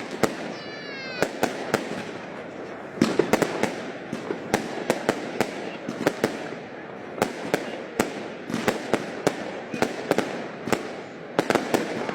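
Fireworks display: a steady run of sharp bangs from shells bursting, some in quick clusters, over a continuous crackle.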